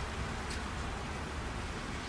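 Steady rain and highway traffic on a wet road: a continuous hiss of rain and tyre spray over a low rumble of passing vehicles.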